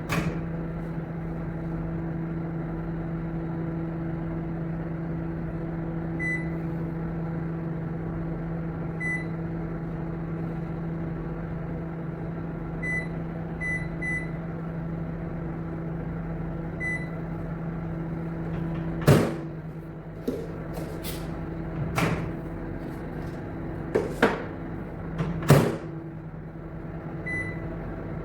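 Homelux HMO-SM25L 1000 W commercial microwave oven running with a steady hum, broken by short electronic beeps every few seconds. The hum stops about two-thirds of the way through, and four or five sharp clicks and knocks follow a few seconds apart.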